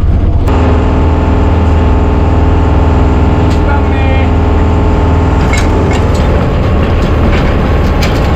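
Motor on a small fishing boat running steadily with a deep, even hum; the hum sets in about half a second in.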